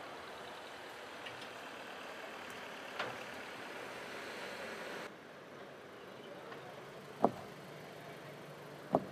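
Jaguar E-Pace running steadily, with three short sharp knocks, the loudest about seven seconds in; the sound drops abruptly about halfway through.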